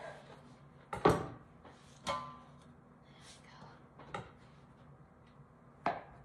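Four separate knocks and clunks as a knife cuts through a rolled cinnamon-roll dough log onto the countertop and slices are set into a stainless steel baking pan. The first knock, about a second in, is the loudest, and the next leaves the metal pan ringing briefly.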